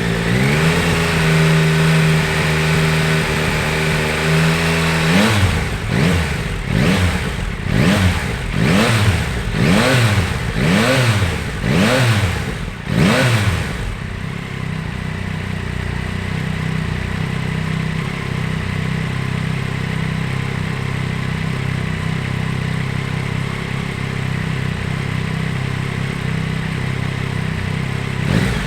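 Yamaha Tracer 9 GT's 890 cc inline three-cylinder engine held at raised revs for a few seconds. It then gets a run of about eight quick throttle blips, roughly one a second, and settles to a steady idle for the second half.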